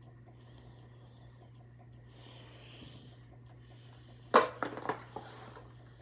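Soft breathing through the nose close to the microphone, then about four seconds in a sharp knock and a quick clatter of clicks as small objects are handled.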